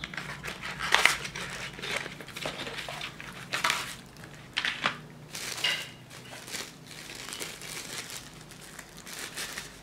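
Cardboard packaging being handled, then a clear plastic bag crinkling and rustling as a small device is unwrapped, in irregular bursts.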